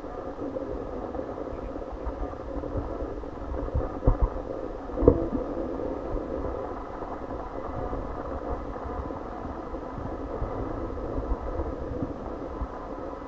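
Steady background rumble with a few low knocks, the plainest about four and five seconds in.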